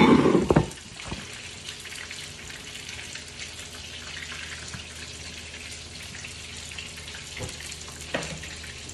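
Hot oil sizzling and crackling steadily in a frying pan on the stove. It opens with a short, loud burst of close rustling and handling noise, and there are a couple of light clacks near the end.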